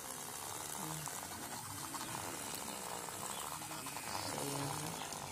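Small homemade electric water pump running submerged in a plastic tub, its jet of water splashing steadily into the water.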